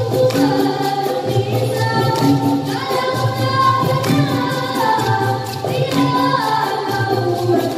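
Children's dikir barat chorus singing together in unison over a steady, repeating percussion beat.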